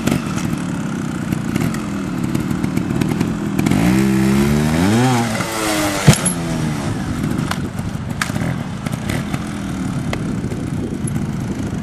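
Trials motorcycle engine running at low revs, revving up and back down about four seconds in. One sharp knock follows, the loudest sound, as the bike lands on the ramp. A few lighter knocks come later as it balances there.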